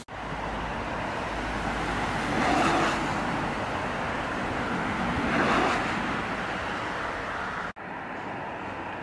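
Road traffic: two cars pass, the louder moments about two and a half and five and a half seconds in, over steady traffic noise. Near the end the sound cuts out for an instant and goes on as a quieter, steadier hum.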